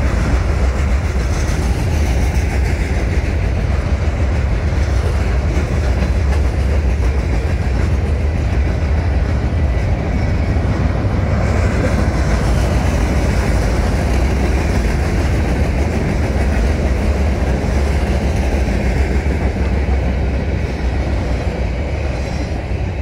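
Freight train flatcars rolling past: a steady, loud rumble of steel wheels on the rails, easing off a little near the end as the last car goes by.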